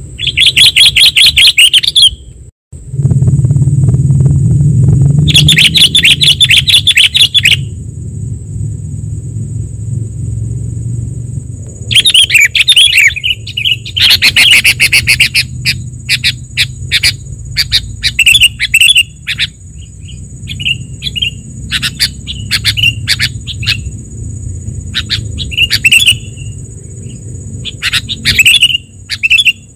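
Sooty-headed bulbuls (kutilang) calling excitedly, a lure recording of noisy, agitated calls. Two long bursts of rapid harsh chattering come first, then a busy string of short chirps and call notes. A steady high whine and a low rumble sit underneath.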